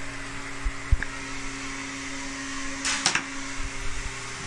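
Refrigerator parts being handled and fitted back into place: two dull knocks about a second in and a brief scraping, clattering rustle about three seconds in, over a steady low hum.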